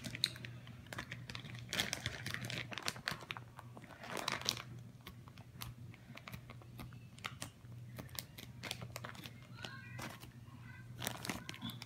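Clear plastic zip-top bags crinkling and rustling as they are handled, in short scattered bursts of crackle that thicken about four seconds in and again near the end. A faint steady low hum runs underneath.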